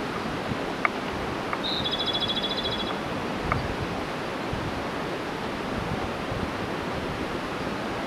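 Mountain stream rushing steadily, with a Japanese robin singing once about two seconds in: a high opening note followed by a rapid trill that lasts about a second.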